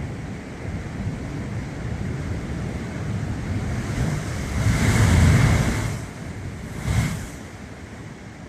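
Sea waves surging and breaking, with wind buffeting the microphone in a steady low rumble. A wave swells up louder about five seconds in, and a short, sharp surge follows about two seconds later.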